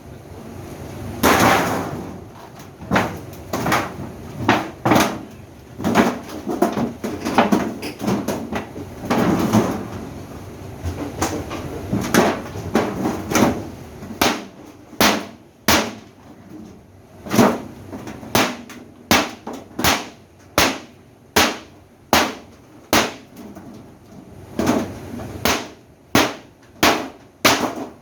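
A long run of sharp knocks and clanks on the parts of a top-load washing machine being worked apart: dense and rattly at first, then separate hard strikes about one or two a second in the second half.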